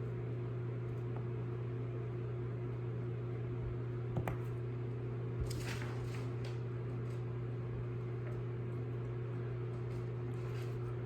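Steady low hum in a small room, with a few faint small clicks and rustles from handling the thin twisted-pair wires of a Cat 5e cable.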